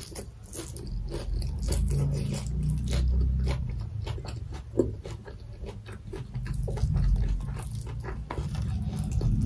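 Close-miked chewing of a mouthful of goat meat and greens, with many wet mouth clicks and smacks and a heavy low rumble underneath; one sharper click about halfway through.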